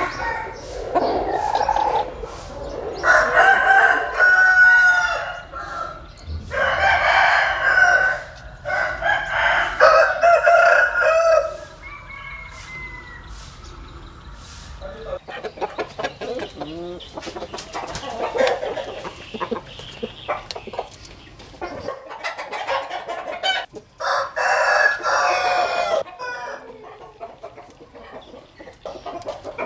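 Roosters crowing, several long crows in a row and another later, with shorter clucking calls between them.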